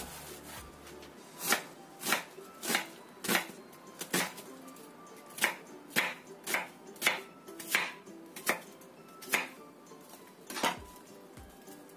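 Knife chopping half an onion on a cutting board: about thirteen sharp chops, roughly one every half second, starting about a second and a half in and stopping shortly before the end.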